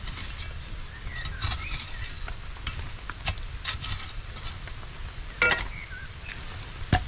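Wood campfire crackling, with irregular sharp pops and a few short whistling hisses, while sausages on sticks roast over the flames. There are louder knocks and rustling of sticks and dry leaves as the skewers are propped in place, the loudest a little after five seconds in and near the end.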